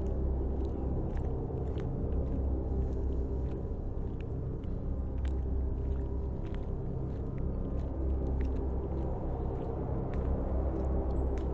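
Low wind rumble on the microphone with scattered crunching footsteps on gritty, wet asphalt, the clicks coming irregularly.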